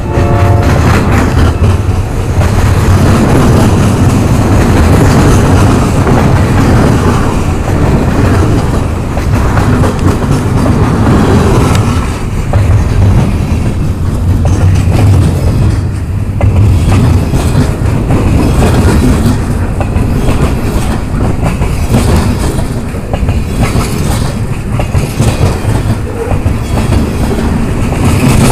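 Freight train cars rolling past close by: a steady rumble of wheels on rail, with a continual irregular clatter of wheel clicks over the rail joints.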